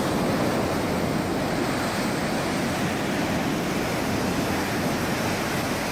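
Floodwater rushing and churning: a steady, even roar of water noise.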